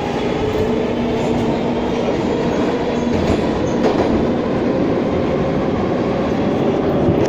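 Metro train running, heard from inside the carriage: a steady rumble and rush of wheels and running gear, with a low steady hum through the first few seconds.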